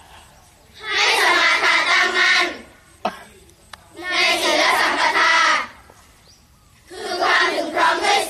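A large group of schoolchildren chanting a Buddhist sutta in unison. It comes in three phrases with short pauses between them, and a single sharp click falls in the first pause.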